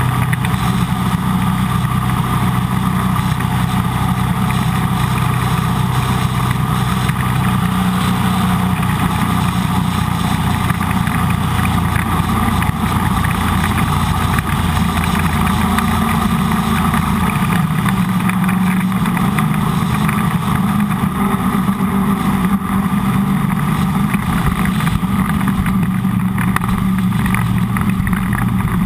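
Jet boat engine running steadily under way, a continuous drone over a rushing noise. The engine's lowest tones drop away a little past halfway, while the overall level holds.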